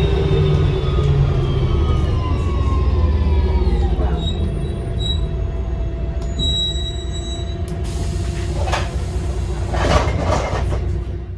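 Onboard a single-deck service bus slowing down: the engine rumbles under a drivetrain whine that falls in pitch for about four seconds, then settles to a steady lower running note. A few short high electronic beeps follow. Near the end come two or three short bursts of hissing noise.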